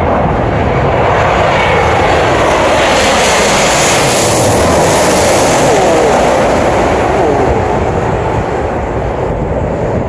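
Twin-engine jet airliner on landing approach passing low overhead. Its jet noise swells to a peak about halfway through, then a falling whine follows as it moves away.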